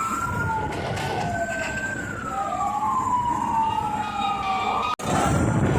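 Two or more emergency vehicle sirens wailing at once, their pitches slowly rising and falling and crossing each other over a low rumble of traffic. The sound cuts out for an instant near the end.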